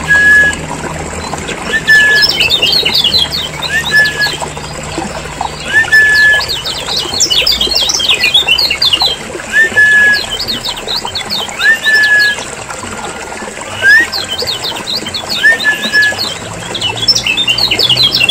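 Kecial kuning (yellow white-eye) calling noisily: bursts of rapid, high chattering notes about every two seconds, alternating with a short rising whistle. This is the agitated calling used as a lure recording to draw in or rouse other kecial kuning.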